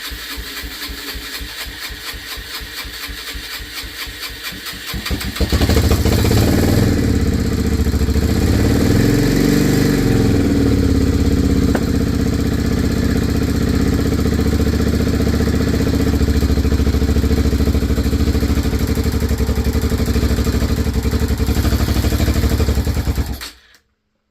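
Freshly crank-rebuilt Yamaha TT-R125's single-cylinder four-stroke engine cranking over with even strokes, catching about five seconds in and running, revved up and back down once, then cut off suddenly near the end. It runs with its valve caps open, which its owner says makes it sound a little noisy.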